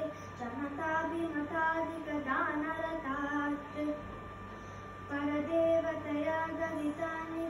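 A woman and a boy singing a devotional aarti song together in held notes of a simple melody, pausing briefly about four seconds in.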